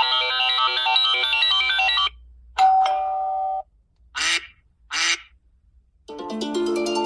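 iPhone ringtones played one after another. A fast, bright melodic loop stops about two seconds in, followed by a single held chime and then two short separate blips about a second apart. Another melodic ringtone with lower notes starts about six seconds in.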